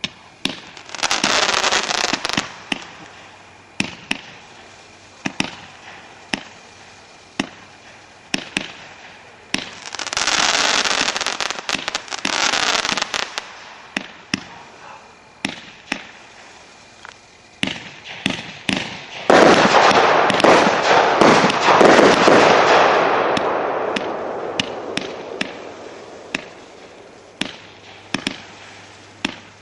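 A 56-shot, 200-gram consumer fireworks cake firing: a steady run of sharp shots and bangs, a little more than one a second. Three long spells of dense crackling come through it, the longest and loudest about twenty seconds in, fading away over several seconds.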